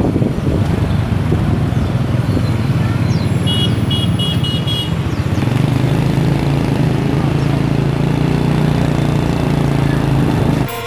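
Motorcycle engine running steadily while riding along a street among other motorbike traffic. A short run of high beeps comes about three and a half seconds in.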